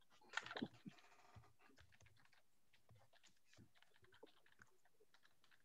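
Near silence on an open video call: faint scattered clicks, with a short brief rustle about half a second in.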